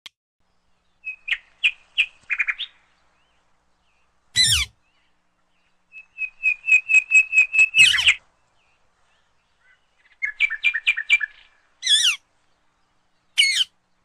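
Indian ringneck parakeet calling: three runs of quick, evenly spaced high chirps, and four loud, harsh squawks that fall in pitch.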